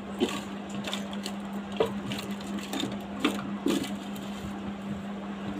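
Scattered small clicks and light knocks as a box of small items is searched through for a hair clip, over a steady low hum.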